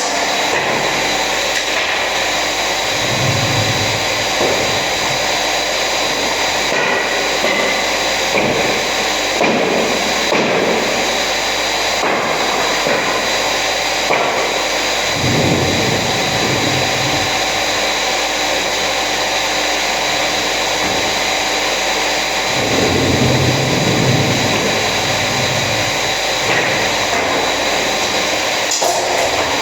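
Electric power tool running continuously with a steady whine, its sound shifting lower briefly a few times as it takes load.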